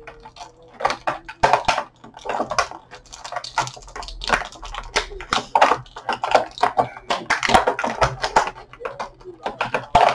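Plastic toy packaging handled by hand: irregular quick clicks, crackles and rustles as small accessories are worked out of the plastic tray.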